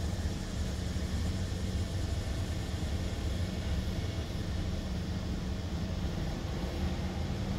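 Engine running steadily at a constant low pitch.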